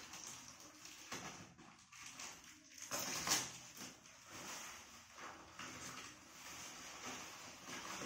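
Cardboard wrapping being torn and pulled open by hand: scattered crackles and rustles, with one louder tear about three seconds in.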